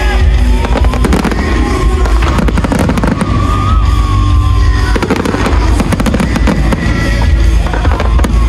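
Fireworks display: aerial shells and ground fountains going off, with many bangs in quick succession over a steady low rumble, and music playing along with them.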